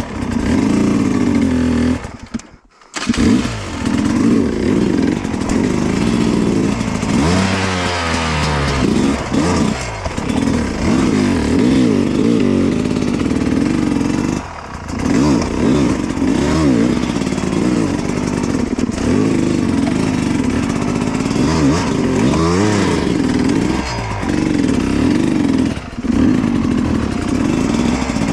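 Dirt bike engine revving up and down unevenly, its pitch rising and falling as the throttle is worked over rough, steep ground; the engine sound drops out briefly about two seconds in.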